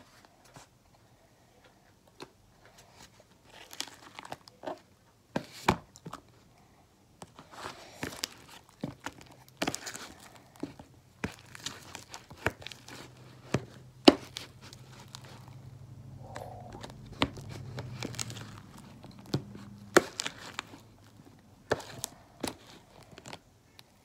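Sticky homemade fluffy slime being stirred and kneaded, giving irregular wet clicks, squelches and crackles: the slime is still too sticky, not yet fully set by the contact solution.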